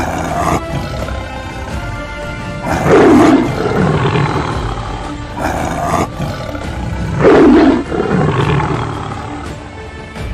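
Two loud big-cat roar sound effects, about four and a half seconds apart, each sweeping down in pitch, over background music.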